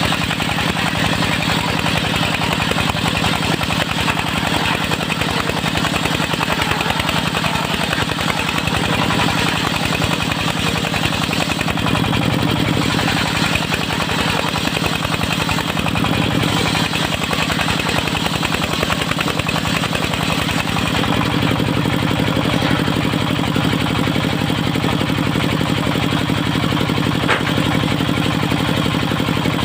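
Engine of a mobile circular sawmill running steadily under load, with a dense mechanical hiss and clatter over the engine note. About two-thirds of the way through, the engine note changes and becomes stronger.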